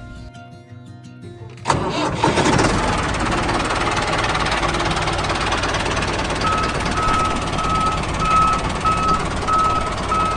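Brief quiet music, then an engine starts abruptly about two seconds in and runs steadily and loudly. Partway through, a single-tone beeper joins, sounding about twice a second like a reversing alarm.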